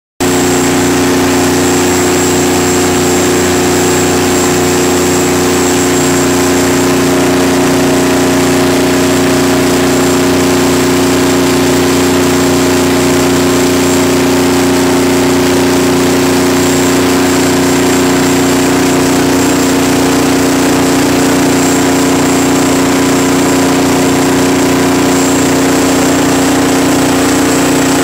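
Detroit Diesel 12V92 two-stroke V12 diesel engine of a 500 kW generator set running steadily at constant speed, with a thin high whine above the engine note. It cuts in suddenly at the start.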